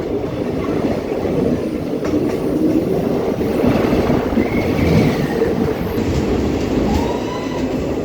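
Passenger train in motion: a steady rumble of wheels on the rails, with a couple of faint brief squealing tones.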